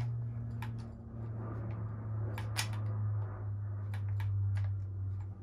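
Scattered small clicks and soft knocks of a shotgun being handled and raised to the shoulder, over a steady low hum.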